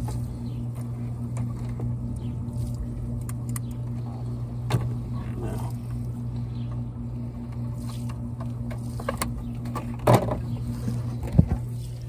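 A steady low electrical hum from running pool equipment, with scattered sharp clicks and knocks as the heat pump's plastic control-panel door and circuit board are handled; the loudest knocks come about ten seconds in and again a second later.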